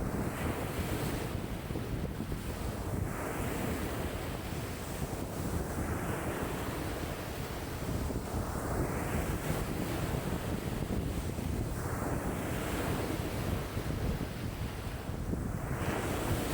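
Wind-driven lake waves washing in, one surge every few seconds, each swelling into a hiss and falling away. Strong wind blows across the water and rumbles on the microphone.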